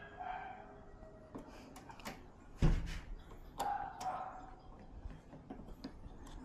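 Scattered clicks and knocks of hands handling and prying at the plastic casing and latches of a Sony TV during disassembly, with one louder thump about two and a half seconds in.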